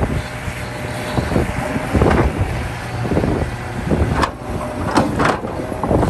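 Large Hitachi ZX670LC hydraulic excavator working: its diesel engine runs steadily under load. Irregular knocks and clatters from digging and loading come through, several of them in the second half.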